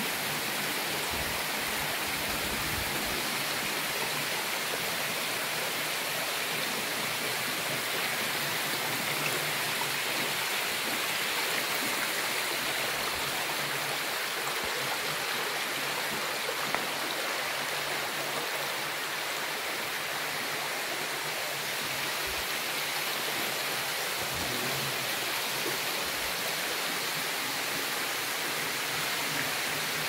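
Shallow creek water running over flat sandstone slabs and small rocky drops: a steady, even rush of flowing water.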